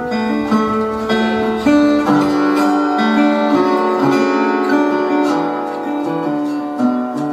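Music: acoustic guitar strumming and picking a steady chord progression.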